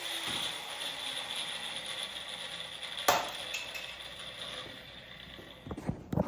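An angle grinder dies away just after a cut through sheet metal; its falling whine ends at the very start, and a steady hiss fades after it. A single sharp knock comes about three seconds in, and metal clanks near the end.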